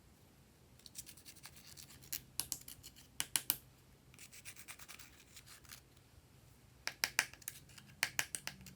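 Glossy slime being squeezed and worked by hand, giving sharp little clicks and pops as air pockets burst, in two clusters with a softer sticky rustle between.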